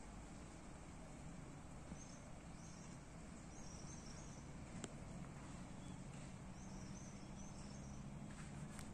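Quiet outdoor ambience: a steady low hum under faint background noise, with two brief runs of soft, high-pitched chirping and a couple of tiny clicks.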